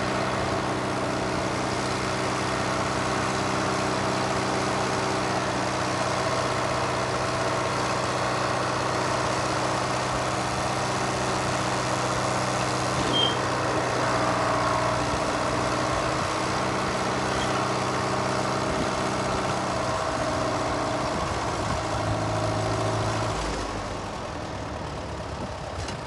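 Allis-Chalmers WD's four-cylinder engine running steadily with the throttle up, driving the tractor's hydraulics as the round baler's tailgate is lowered through the new remote. The engine drops away near the end as it is shut down.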